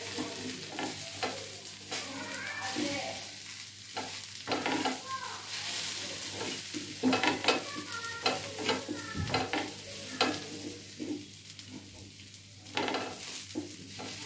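Dosa sizzling on a hot flat pan while a wooden spatula spreads red chilli paste over it, with repeated scrapes and taps of the spatula against the pan.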